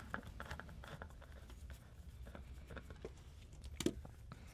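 Faint scraping and light clicks of a screwdriver backing the bottom-plate screws out of a Boss DS-1 guitar pedal's metal enclosure, with one sharper click near the end.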